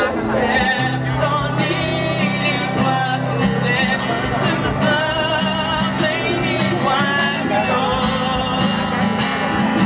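A male singer singing a ballad live to his own strummed acoustic guitar, heard through the stage sound system. The voice holds long, wavering notes over steady, regular strums.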